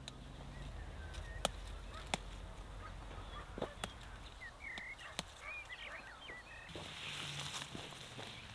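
Garlic scapes being snapped off by hand, giving scattered sharp snaps, with a few short bird chirps about halfway through and a burst of rustling through the plants near the end.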